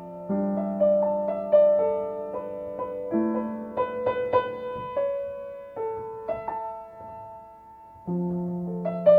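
Slow, gentle solo piano: sustained low bass notes under a soft melody, with a quieter pause near the end before a new chord enters.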